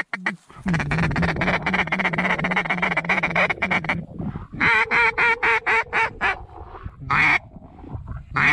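Hunters blowing mallard duck calls: a fast, continuous feeder chatter, then a loud run of about seven quacks, then single quacks near the end.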